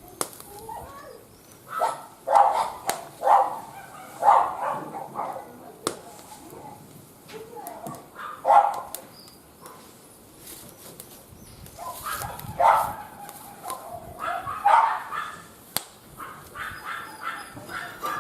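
A dog barking in short, separate barks, with a quick run of barks near the end, over sharp pops and crackles from a wood fire.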